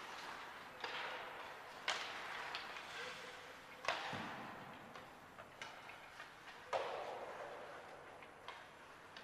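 Ice hockey skate blades and sticks on the ice of a large rink: four sharp knocks, each trailing off in a long echo, with smaller clicks and blade scrapes between them.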